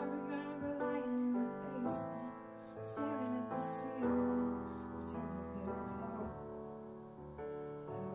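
Grand piano playing a slow ballad in sustained chords, with a woman's voice singing held notes over it.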